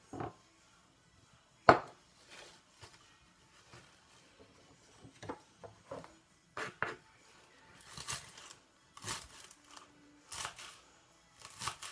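A knife slicing through green onions on a plastic cutting board, a few separate cuts about a second apart in the second half. Before that, a sharp knock about 1.7 s in, the loudest sound, and light clicks and taps of handling on the board.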